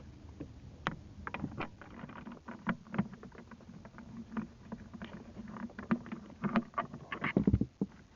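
A wrench loosening 13 mm bolts on a car battery's terminal hardware: scattered metallic clicks and knocks, with a quick, loud cluster near the end, over a faint steady hum.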